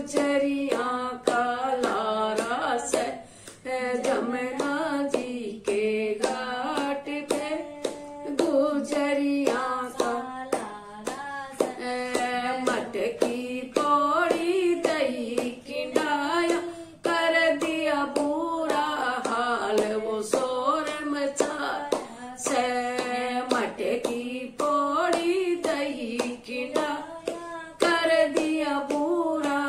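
A woman singing a Haryanvi Krishna bhajan (devotional folk song), clapping her hands to a steady beat.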